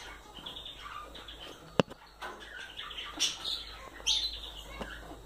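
Caged Gouldian finches giving short chirping calls, the loudest about three and four seconds in. A single sharp click a little under two seconds in.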